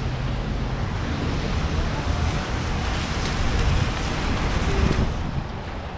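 Wind buffeting the microphone of a helmet-mounted camera while riding a bicycle, a steady rushing with a low rumble underneath that grows a little louder midway.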